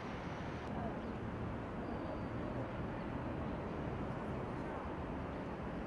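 Steady outdoor city background noise: a low, even rumble of distant traffic.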